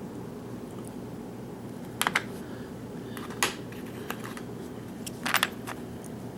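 Small metal padlock parts being handled during disassembly, giving a few sharp clicks and taps: a pair about two seconds in, a single click a little over a second later, and a close cluster near the end, over a steady low hum.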